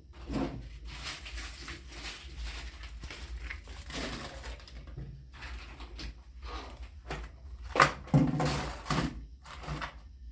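Food containers and packets being put back onto fridge shelves: irregular knocks and clatter with plastic rustling, the sharpest knock about eight seconds in.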